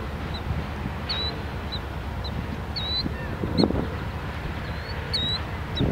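Empty autorack freight cars rolling past on steel wheels, a steady low rumble with two heavier clanks from the wheels, one a little past halfway and one at the end. Short high chirps repeat over it throughout.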